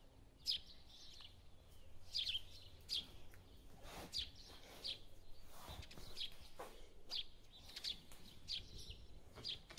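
A small bird chirping faintly, short high chirps repeating every half-second to a second, with a couple of soft low thumps in between.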